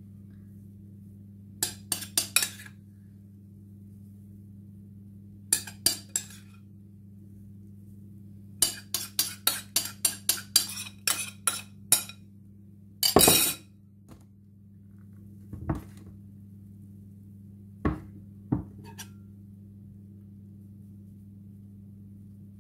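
A metal spoon clinking and scraping against a glass mixing bowl as the last of the batter is scraped out: short groups of clinks, a quick run of about a dozen, a longer, louder scrape about 13 seconds in, then a few single taps. A steady low hum runs underneath.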